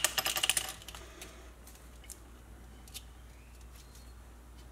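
A quick run of small clicks and rattles from a tape measure and metal edge trim being handled on a stone countertop, then a few faint ticks during quiet handling.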